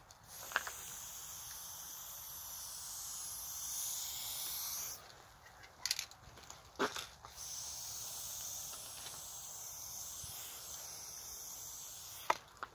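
Aerosol spray paint hissing from a Montana BLACK can in two long sprays, with a break of about two seconds in the middle. A few sharp short knocks fall in the break and again near the end.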